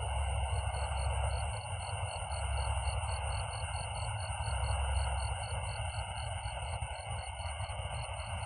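Insect chorus, crickets among them: several steady high trills with one chirp repeating about four times a second, over a low rumble.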